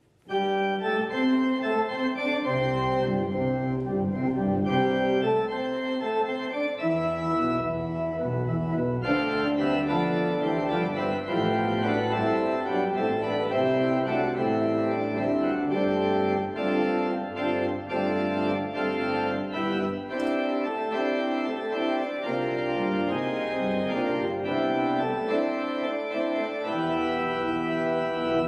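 Church pipe organ playing the postlude: full sustained chords over pedal bass notes, starting abruptly just after the opening.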